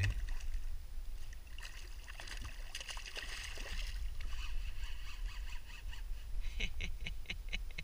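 Water splashing and sloshing around a kayak over a steady low rumble, with a quick run of sharp clicks near the end.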